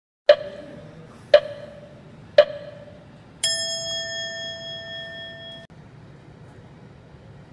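Edited-in sound effect: three sharp ringing strikes about a second apart, then one bright bell ding that rings for about two seconds and cuts off suddenly.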